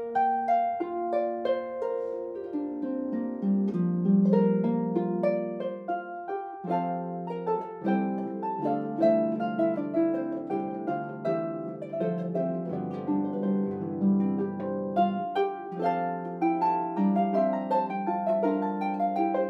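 Harp playing a flowing piece, plucked notes ringing over one another in chords, with a low bass line in the middle.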